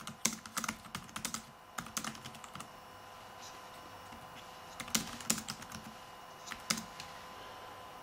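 Typing on a ZAGGKeys Folio Bluetooth keyboard for the iPad Air: quick runs of key clicks, a pause of about two seconds, then another short burst and a few last keystrokes.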